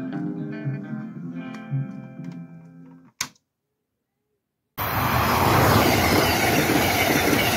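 Guitar-and-bass country music played from a vinyl record, fading out over about three seconds; then a single click and a second and a half of silence. From about five seconds in, the loud, steady rush of an Amtrak passenger train passing close by.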